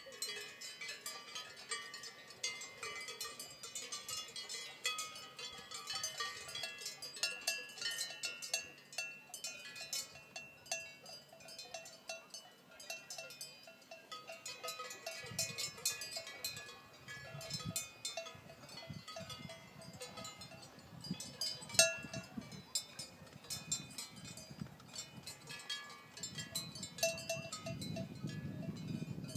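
Many cowbells on grazing cattle clank and ring irregularly as the animals move, making a steady jumble of overlapping metallic tones with one sharp, loud clank about two-thirds of the way through. A low rumble joins in during the second half.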